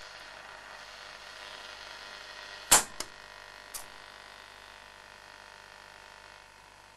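SABA Königsfeld 14 tube radio giving off steady hiss from its speaker while tuned between stations with no antenna, fading slightly. A sharp click comes about three seconds in, and a fainter one a second later.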